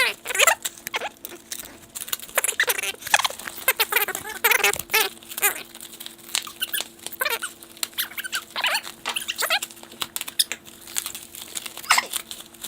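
Voices sped up in a time-lapse, turned into fast, high-pitched chipmunk-like chatter and squeaks, with quick rustling and clicks.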